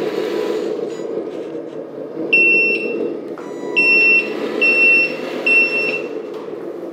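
RC truck sound module sounding its reversing alarm, four short high beeps in the second half, over a steady low running sound while the 8x8 dump truck backs up.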